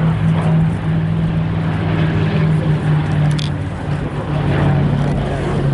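Piston aero engines of the B-17G Flying Fortress and P-51 Mustang droning steadily as the pair run in, a loud low hum that wavers slightly in pitch.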